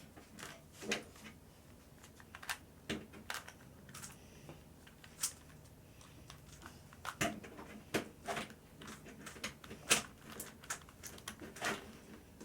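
Plastic Rubik's Cube layers being turned, an irregular run of faint clicks and rattles.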